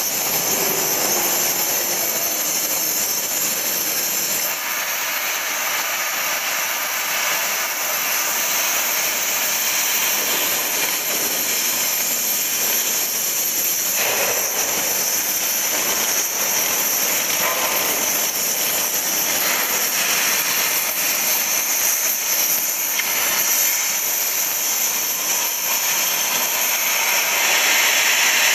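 Oxy-fuel cutting torch of a Pierce RUR 3500 CNC cutting machine hissing steadily as its oxygen jet cuts through 10 mm St3 steel plate. A little louder near the end.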